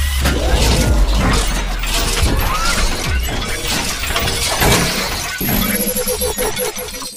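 Intro sound design: a run of crashing, shattering hits and sweeps over music.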